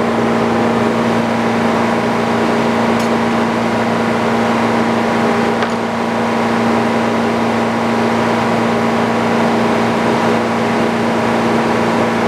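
Sawmill engine running at a steady speed, an even machine drone with no change in pitch.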